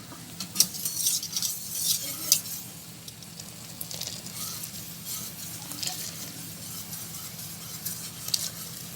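Spoon stirring boiling yogurt in a cooking pot, scraping and clinking against the pot, busiest in the first couple of seconds and again near the end, over a steady low hum.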